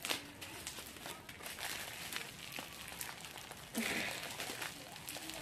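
Plastic packaging crinkling and rustling as a plastic mailer bag is pulled off a bubble-wrapped parcel, with a louder rustle about four seconds in.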